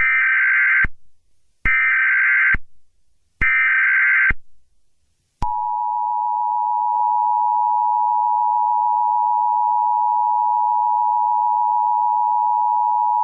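Emergency Alert System tones: three short bursts of SAME header data tones, each just under a second long and about a second apart, then the steady two-tone EAS attention signal (853 and 960 Hz) for about eight seconds. Together they announce an emergency alert broadcast.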